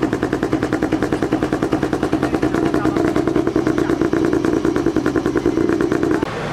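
Rally car engine running at idle, loud and close, with a fast, even pulsing beat. It cuts off suddenly near the end.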